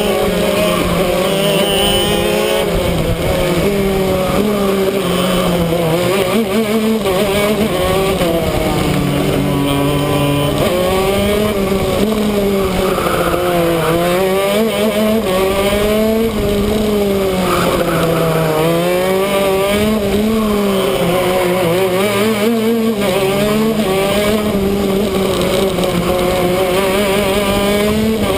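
Shifter kart's 125 cc two-stroke engine running at racing speed. Its note rises under acceleration and drops repeatedly through corners and gear changes, with a steady rushing hiss over it.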